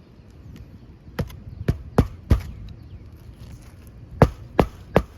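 Hammer blows driving roofing nails into a new asphalt shingle: four sharp strikes, a pause, then a steady run of strikes about three a second that carries on past the end.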